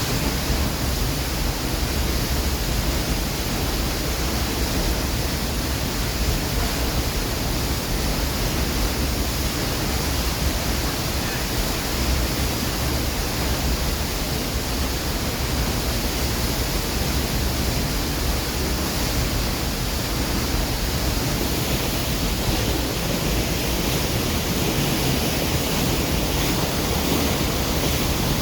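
Steady, unbroken rushing of a waterfall.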